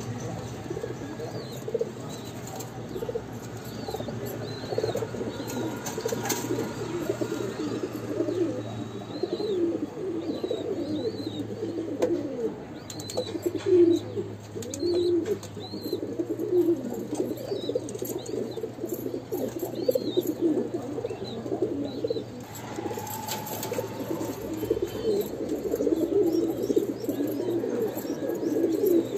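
Domestic pigeons in a loft cooing continuously, several voices overlapping, with short high chirps from a smaller bird repeating above them. A steady low hum sits underneath.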